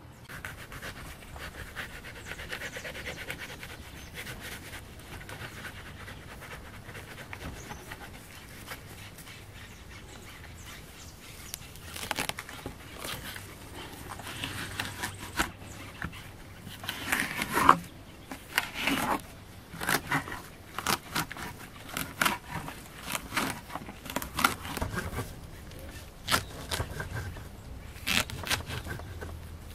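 Kitchen knife cutting fleshy nopal cactus pads into cubes on a wooden stump. It is fairly quiet at first, then from about twelve seconds in comes a run of short, irregular cuts and knocks of the blade against the wood.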